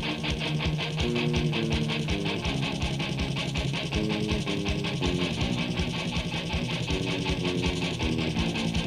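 Instrumental break in a skinhead rock song on a demo recording: electric guitar playing a melodic line over a fast, steady drum beat, with no vocals.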